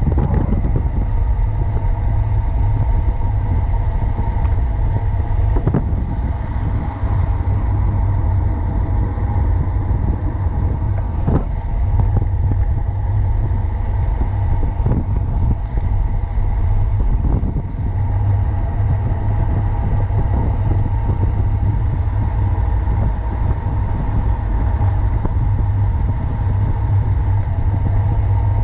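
Steady wind rushing and buffeting over a bicycle-mounted action camera's microphone on a fast road-bike descent, heavy and low, with a few sharp ticks scattered through it.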